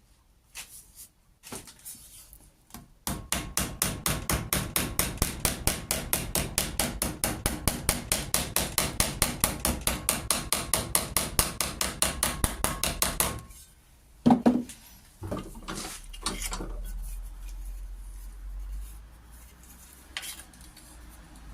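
Metalworking on a stainless steel bolt: a fast, even run of sharp metallic strokes, about six a second, lasting some ten seconds. It stops, and a single loud knock and a few softer clicks follow.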